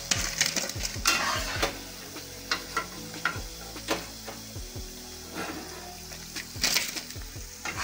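Chana dal bhaji sizzling in hot frying oil in a kadhai as they are scooped out, with several scrapes and clinks of a slotted steel spatula against the pan.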